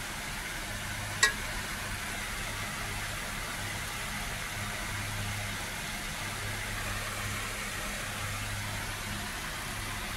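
A single sharp clink of a metal spoon against a steel plate about a second in, over a steady low hum and hiss.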